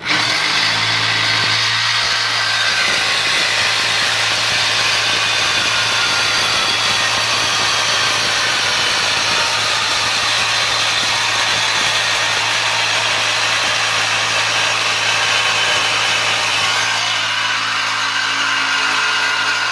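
Electric reciprocating saw cutting through a steel exhaust pipe. The saw starts abruptly and runs without a break, a steady motor hum under the rasp of the blade on the metal.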